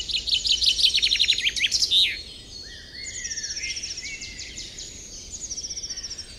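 Woodland songbirds singing. A loud, fast trill of quickly repeated falling notes lasts about the first two seconds, then softer trills and whistles follow.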